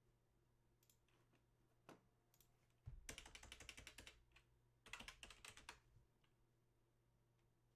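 Typing on a computer keyboard: a few single key clicks, then two quick runs of keystrokes about three seconds in and again about five seconds in.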